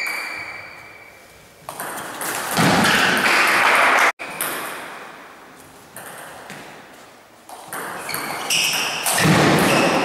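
Table tennis match sounds in an echoing sports hall: a ringing ping near the start, then two loud bursts of noise, one about two seconds in and another about eight seconds in. Each burst is cut off abruptly.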